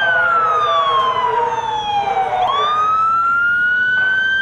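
Emergency vehicle siren wailing. Its pitch slides down for about two and a half seconds, jumps back up and climbs slowly again.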